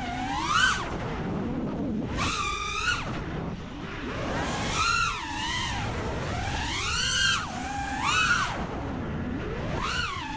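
6S FPV freestyle quadcopter with T-Motor F60 Pro V 2020kv motors and Gemfan 51466 props, its motors and props whining. The pitch swoops up and falls back about six times as the throttle is punched and chopped through flips and dives.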